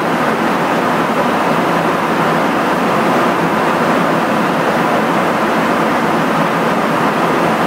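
Steady rushing roar of airflow and jet engine noise inside a KC-135 tanker's boom operator compartment during air-to-air refueling, even and unchanging throughout.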